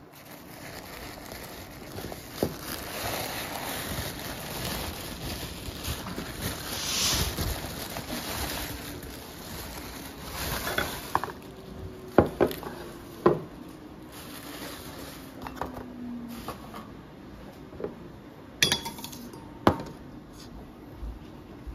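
Tissue paper crinkling as it is pulled off a glass cup, then a few sharp clinks of glass and stainless steel as the cup in its metal holder is handled and set onto a stainless saucer.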